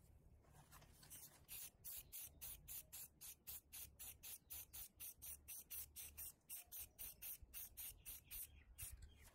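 Aerosol spray paint can hissing in quick short bursts, about four or five a second, as black paint is sprayed in puffs.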